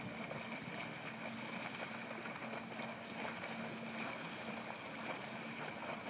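Car ferry's engines running: a steady, even hum carrying a faint low tone.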